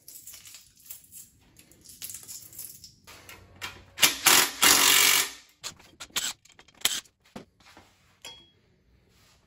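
Cordless power driver run in short bursts to spin out bolts. The longest burst starts about four seconds in and lasts about a second, among clinks and rattles of metal parts.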